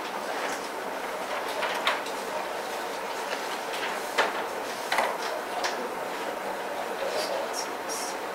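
Steady room hiss with a few short clicks and rustles of paper sheets being handled and turned at a table.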